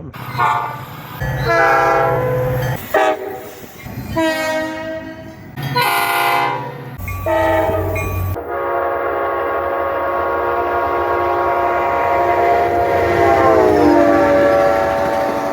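Locomotive air horns: a quick run of short horn blasts about a second each, cut one after another, then from about eight seconds in one long continuous horn blast sounding several tones at once. Near the end the long blast's chord drops in pitch as the locomotive passes.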